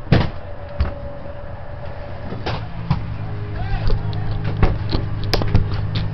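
A boat's engine running steadily, its drone growing louder about three seconds in, with several sharp knocks, the loudest right at the start, and voices in the background.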